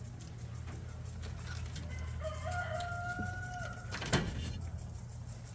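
Rooster crowing once: one held call of about a second and a half, starting about two seconds in. A sharp thump follows about four seconds in, over a steady low hum.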